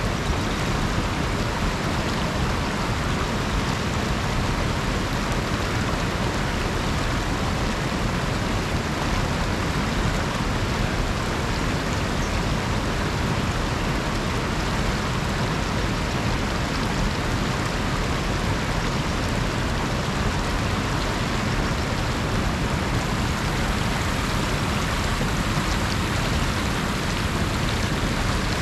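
Shallow river rushing steadily over rocks and a small rapid, an even wash of water noise.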